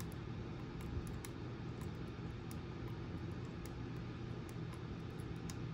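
Faint, irregular small clicks of a micro:bit's push buttons being pressed, over a steady low hum.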